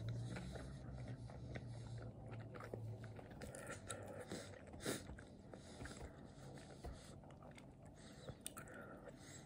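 Close-up chewing of a mouthful of souvlaki meat: faint, with small mouth clicks, one a little louder about five seconds in, and a low hum for the first three seconds.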